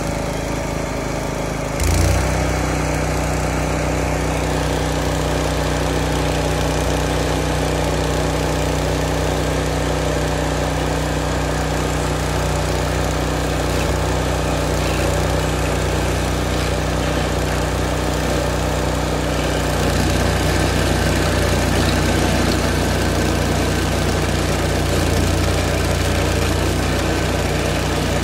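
Old Vermeer stump grinder's engine running steadily. About two seconds in there is a sudden loud knock, and the engine note then settles lower and heavier.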